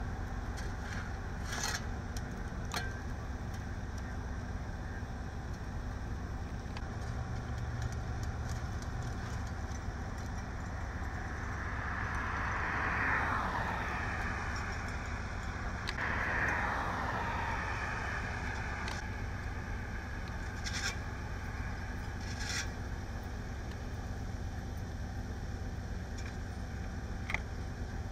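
Steady low rumble of idling vehicles and freeway traffic, with two vehicles driving past about twelve and sixteen seconds in, their pitch falling as they go by. Occasional short clinks and scrapes of crash debris being swept off the pavement with brooms.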